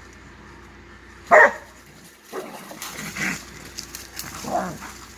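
Blue Lacy dog barking at a cornered raccoon: one loud bark about a second in, then a run of shorter barks.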